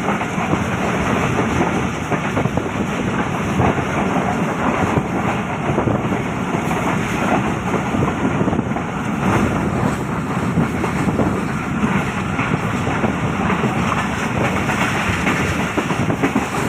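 Train running at speed: a steady rush of air with the wheels clattering over the rails.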